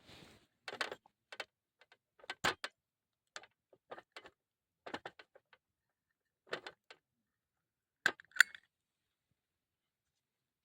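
Irregular clicks, knocks and clatters of small hard objects being handled, about a dozen spread over the stretch. The two loudest come close together near the end, with a brief ringing tone.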